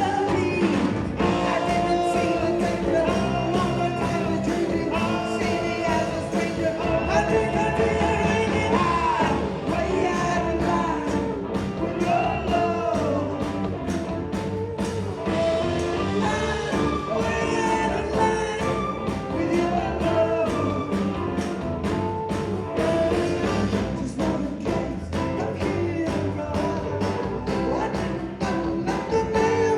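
A live rock band playing a song with a lead singer. Drums keep a steady beat under the vocal melody throughout.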